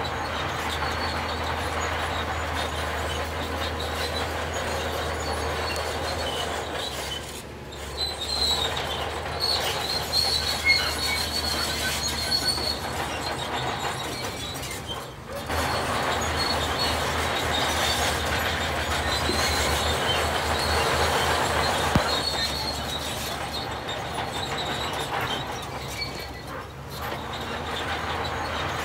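Heavy earthmoving machinery running, with a steady low engine drone and a metallic grinding clatter. A thin high squeal rises from about eight to thirteen seconds in. The sound briefly drops away a few times.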